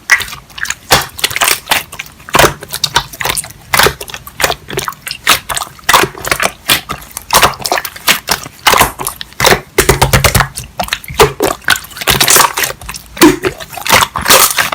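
Slime being squeezed and worked by hand, making a dense, irregular run of sticky pops, clicks and crackles.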